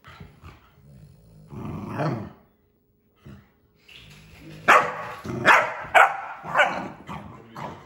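Dog barking during a face-off between a French bulldog and a puppy: one bark about two seconds in, then a run of about five sharp, loud barks over the last three seconds.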